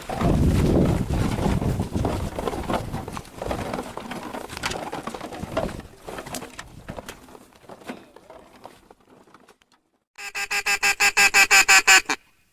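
Rustling and knocking noise with a low rumble, dying away; then, about ten seconds in, a quick run of about ten evenly spaced duck quacks that grows louder and cuts off suddenly.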